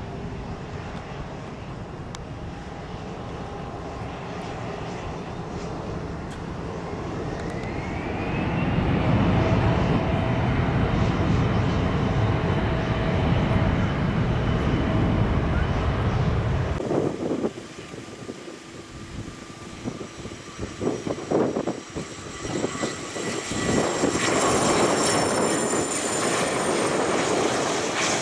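Gulfstream G650's twin turbofans spooling up for the takeoff roll. A whine rises in pitch about eight seconds in and holds steady over loud, deep jet engine noise. About seventeen seconds in the sound cuts abruptly to another Gulfstream jet approaching to land: its high engine whine falls slightly in pitch, with wind buffeting the microphone.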